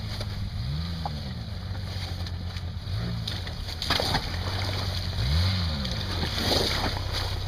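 Off-road buggy engine running under load as it crawls over rocks, its revs rising and falling three times, with wind buffeting the microphone.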